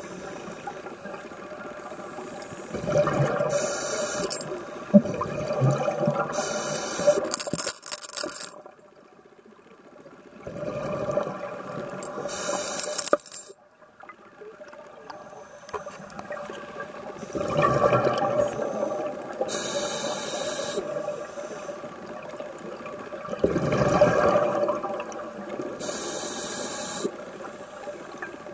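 Scuba diver breathing through a regulator underwater: short hissing inhales alternate with longer bubbling exhales, about four breaths in all, with quieter pauses between them.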